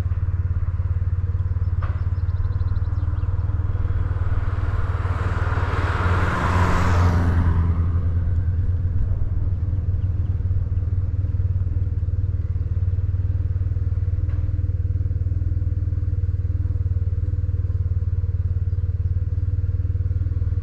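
BMW R1150GS boxer-twin engine running steadily. About four seconds in, a rush of noise swells and fades over roughly four seconds.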